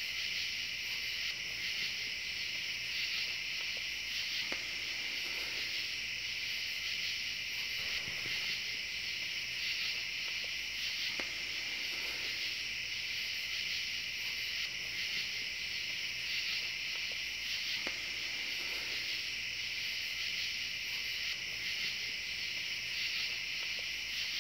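Crickets chirping in a steady night chorus, a continuous high trill. A few faint clicks come through now and then.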